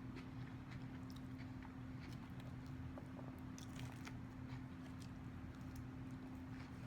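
Faint chewing and crunching of a mouthful of Caesar salad with croutons, with small scattered crunches over a steady low hum.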